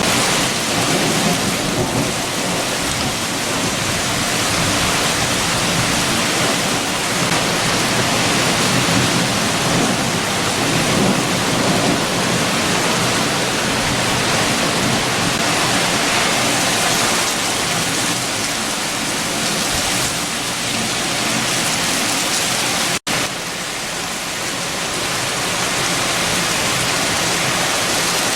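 Heavy rain falling steadily with strong wind, a dense even hiss. A split-second dropout cuts it about two-thirds of the way through, and it returns a little quieter.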